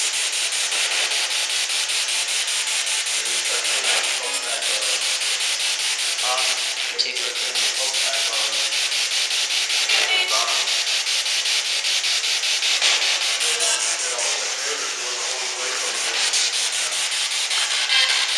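Spirit box sweeping through radio stations: a steady, loud hiss of static with a fast, even chopping, broken every few seconds by brief voice-like snatches.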